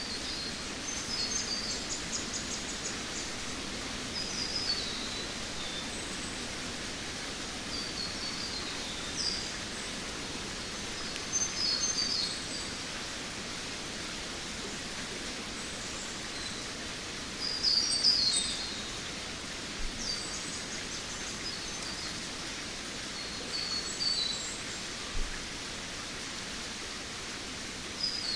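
Jungle ambience: a steady hiss underlies short clusters of high chirping bird calls that come every few seconds.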